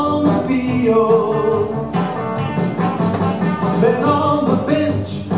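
A song playing, with a singing voice over instrumental backing with a steady beat.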